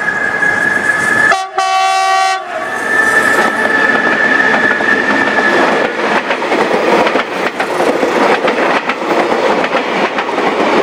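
Metrorail commuter train sounding its horn in one blast of about a second, roughly a second and a half in, over a steady high tone. From about six seconds in the train runs past with its wheels clattering over the rail joints.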